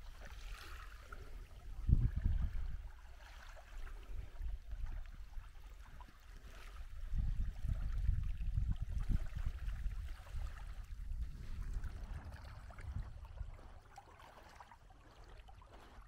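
Wind buffeting the microphone in irregular low rumbling gusts, loudest about two seconds in and again from about seven to ten seconds, over faint lapping of small waves at the water's edge.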